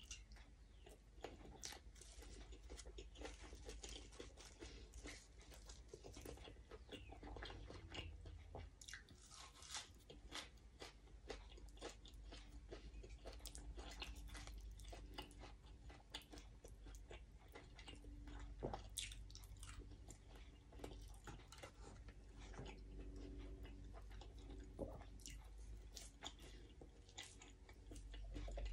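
Quiet, close-up eating sounds: steady chewing of sticky rice with Isaan eggplant dip, eaten by hand, with many small, irregular crunchy clicks and mouth sounds.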